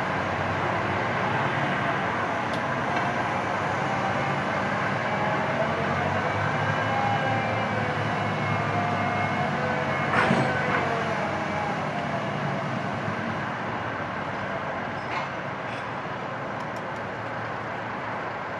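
Diesel engine of a Liebherr LTM 1100-5.2 mobile crane running steadily, with a faint whine that slides in pitch. A single metal clang with a short ring comes about ten seconds in.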